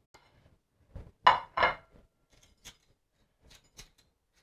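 Kitchen knife scraping and knocking against a ceramic plate as the last seeds are scraped out of a halved green pepper. Two louder scrapes come about a second and a half in, with a few light clicks before and after.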